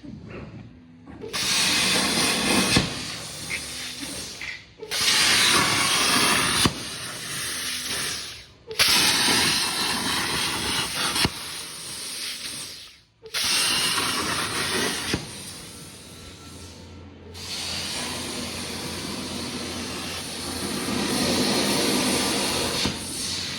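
Hypertherm Powermax125 plasma torch cutting 3 mm sheet at 65 amps under CNC control: a loud, steady hiss of the plasma arc that breaks off briefly four times before starting again.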